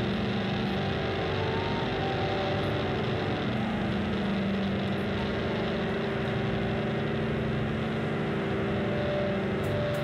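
A live rock band's droning intro: held, sustained notes over a dense steady wash, likely from guitars and effects. Light regular ticks come in near the end.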